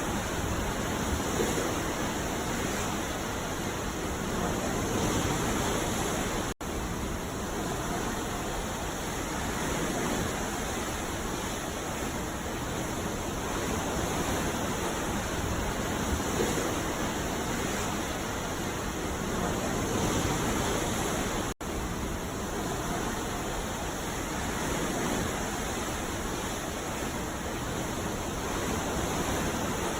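Ocean surf washing on a beach: a steady rush of breaking waves that swells and eases every few seconds. Two brief dropouts, about 6.5 and 21.5 seconds in, cut the sound for an instant.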